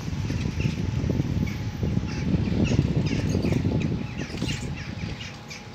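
Birds calling over and over in short, high chirps and squawks, over a low rumble on the microphone that is loudest in the middle and fades about four and a half seconds in.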